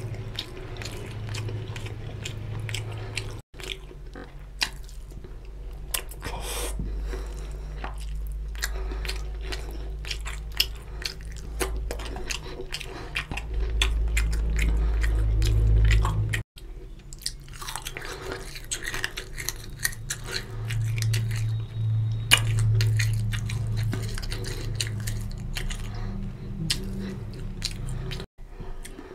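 Close-miked mouth sounds of eating a curry-coated chicken drumstick by hand: chewing, biting and gnawing the meat off the bone, with many quick wet clicks and smacks.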